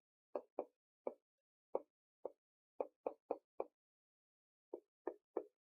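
A dozen short, soft taps at an uneven pace, with a pause of about a second after the first two-thirds.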